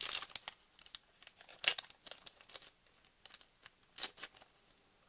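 Small plastic zip-top bags crinkling as they are handled, in a handful of short, scattered crackles, the loudest at the start, about a second and a half in and about four seconds in.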